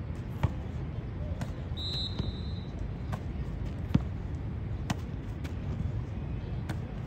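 Footballs being struck during a football training session: scattered sharp thuds at irregular intervals over a steady low outdoor rumble. A brief high whistle tone comes about two seconds in.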